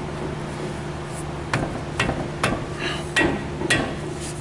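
Brake caliper on a 1996 Jeep Grand Cherokee's front wheel being knocked and forced into place over a new drilled rotor: about five sharp knocks roughly half a second apart starting about a second and a half in, the caliper refusing to seat easily.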